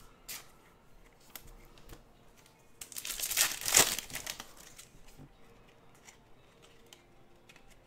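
Wrapper of a Topps Chrome baseball card pack crinkling and tearing as it is ripped open: a burst lasting about a second, starting around three seconds in. A few light ticks from cards being handled come before it.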